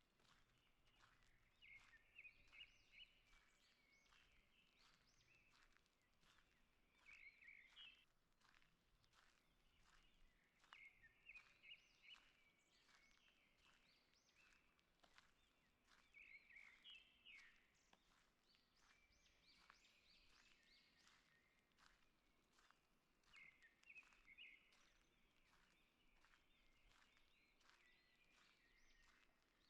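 Faint songbird song, one short phrase every four or five seconds, over a steady run of soft footsteps at walking pace on a forest path.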